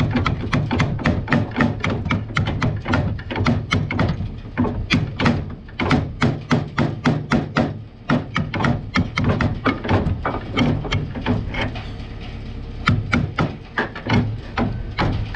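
Rapid hammer blows on a rusty steel cutting wheel of a corn head, knocking it loose to get it off. About three or four blows a second, with a few short pauses.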